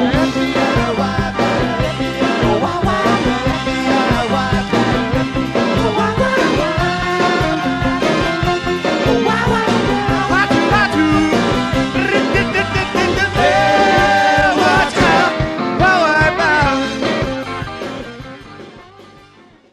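Live rock band playing a surf-rock number with a sung vocal line, fading out over the last few seconds.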